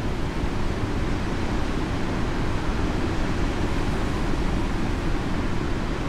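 Pacific Ocean surf breaking and washing in over a rocky shore: a steady, powerful low rush of churning water with no single wave standing out.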